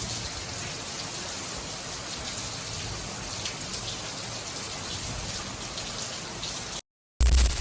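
Steady rain falling, an even hiss that cuts off abruptly about seven seconds in. A brief, loud, deep burst follows just before the end.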